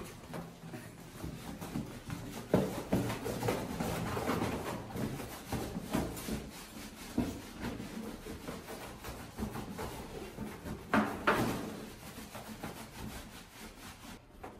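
Rubbing and shuffling as the wet golden retriever is handled after her bath, with a few sharp knocks about two and a half, six and eleven seconds in.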